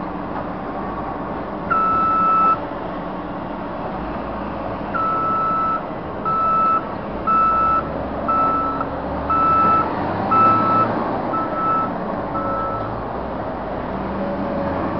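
Backup alarm on heavy earthmoving equipment beeping: one beep about two seconds in, then a regular run of beeps about once a second. Underneath, the diesel engines of excavators, loader and dump trucks run steadily.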